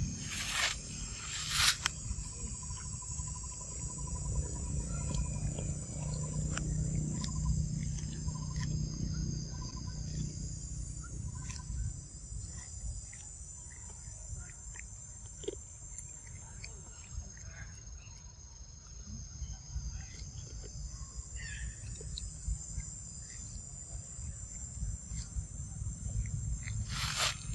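Steady high-pitched drone of insects over a low rumble, with scattered small crunching clicks as a macaque bites into an ear of corn. A faint short pip repeats about once a second through the first half, and brief bursts of noise come near the start and the end.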